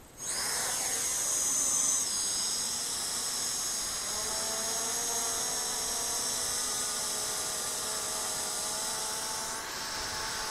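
Small Hubsan H502E quadcopter's motors and propellers whining steadily at a high pitch, in flight while carrying a heavy RunCam HD camera. The whine starts abruptly, its pitch dips about two seconds in, and its lower tones waver after that as the throttle shifts.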